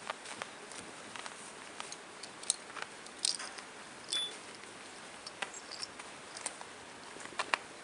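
Kittens' paws scuffling and scratching on a quilted mat and toys: scattered light scratches and taps, with a brief high squeak about four seconds in.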